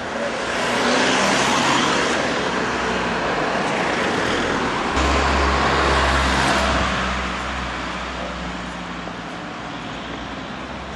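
Cars driving past close by: tyre and engine noise swells about a second in, with a deeper engine rumble from about five to seven seconds, then fades away.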